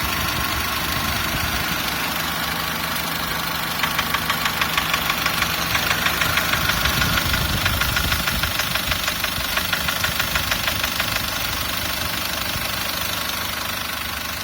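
SsangYong Actyon Sports DTR2.0 diesel engine running, with a rhythmic engine knock, about four sharp knocks a second, that sets in about four seconds in and dies away a few seconds before the end.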